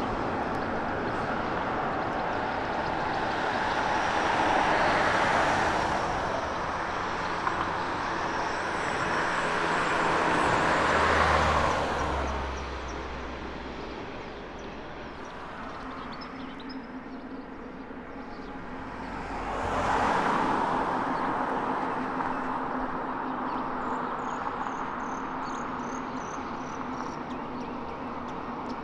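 Double-deck regional trains rumbling across a railway bridge, blended with steady road traffic. The noise swells and fades several times as trains and vehicles pass, and the low rumble drops away abruptly about twelve seconds in.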